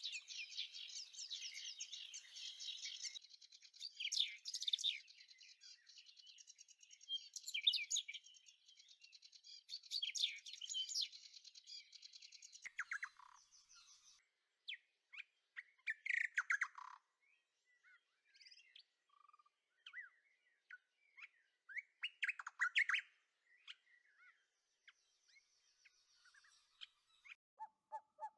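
Small birds chirping and calling in quick, high-pitched bursts, at first over a steady high hiss that stops about halfway through.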